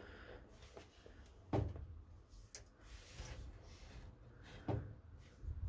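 Nautilus NE3000 elliptical machine being run by hand, its linkage pivot joints giving a short creak and knock about every three seconds. The squeak is still there after grease was applied to the joints from the outside.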